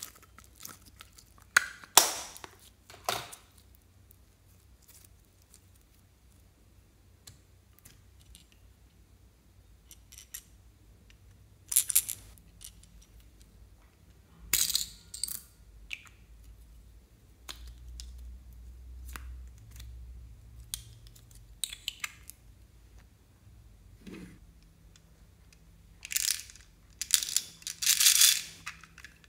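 Close-miked handling of slime and small hard plastic toys and charms over a glass dish: scattered sharp clicks and taps, with a few louder noisy bursts of handling, the biggest cluster near the end.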